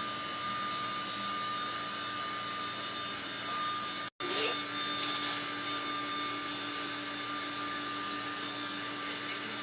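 Steady electric motor whir with a faint high whine, dropping out for an instant about four seconds in.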